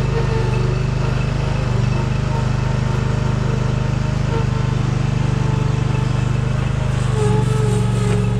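Engine of a small earthmoving machine, a compact excavator or skid steer, running steadily with an even low throb.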